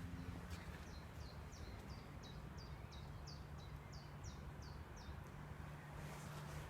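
A songbird calling a rapid series of about fourteen short, high, downslurred notes, roughly three a second, stopping about five seconds in. Under it is the steady low hum of distant highway traffic.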